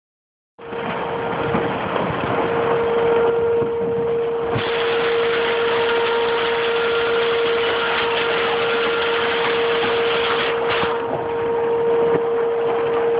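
Hailstorm: hailstones and rain pelting down in a dense, steady clatter of small hits. A steady humming tone runs underneath.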